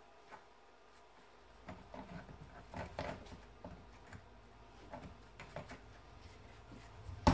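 Faint, scattered taps and scrapes of a small brush dabbing whitening solution onto a deer skull and dipping into a plastic tub of solution, with a louder bump at the very end.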